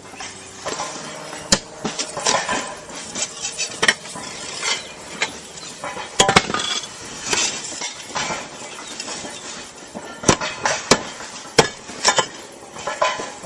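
Clay roof tiles clinking and knocking against each other as they are handled, with sharp clinks scattered throughout.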